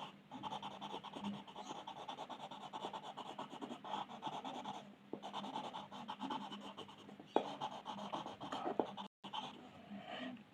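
Coloured pencil shading on paper in rapid back-and-forth scratchy strokes, pausing briefly twice, with a couple of sharper taps in the second half.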